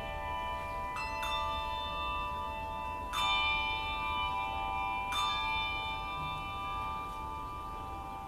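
Several brass handbells rung together, their overlapping tones ringing on as a chord. A fresh round of strikes comes about a second in, again about three seconds in and about five seconds in.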